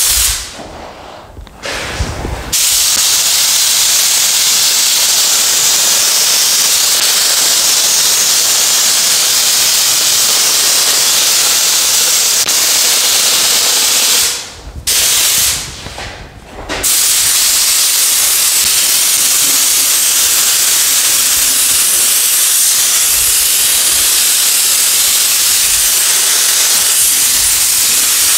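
Compressed-air paint spray gun (gravity-feed) hissing steadily as it sprays paint onto an engine block, with the trigger let off for short pauses near the start and twice around the middle.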